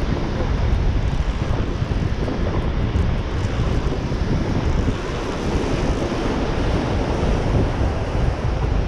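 Wind buffeting the microphone over breaking surf: a steady, rushing noise, heaviest in the low end.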